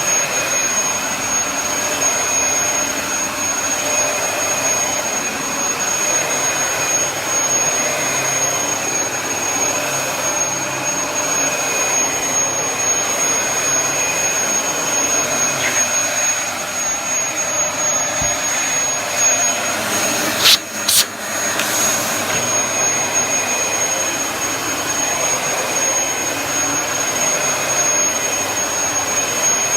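Dyson upright vacuum cleaner running steadily, its motor giving a thin high whine over a loud rushing of air. About twenty seconds in, the sound briefly drops with a couple of sharp clicks, then carries on.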